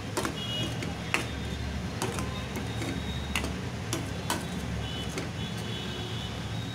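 Steel spatula scraping and knocking against a stainless steel kadai while stirring thick mint paste frying in oil, making irregular sharp clicks, roughly one or two a second, over a steady low hum.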